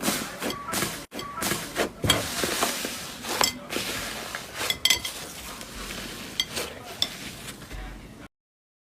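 Slime being handled, giving dense irregular sticky crackles and small pops. The sound cuts off suddenly near the end.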